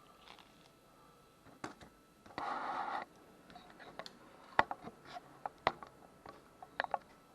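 Handling a phone during disassembly: a short scrape about two and a half seconds in, then a scattering of sharp small clicks and taps of plastic parts and tools.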